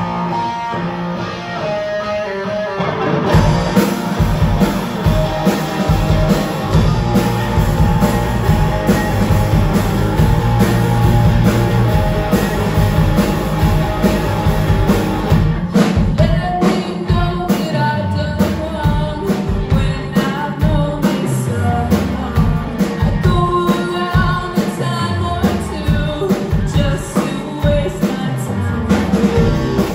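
A live rock band playing, with electric guitars and a drum kit under a singer's voice. The full band comes in about three seconds in.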